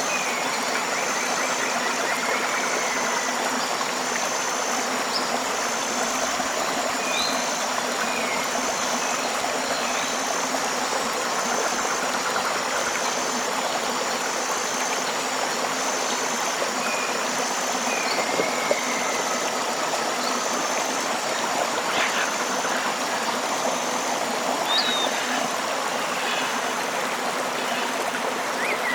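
River water flowing and rushing steadily, with occasional short bird chirps and a faint high tone pulsing about once a second.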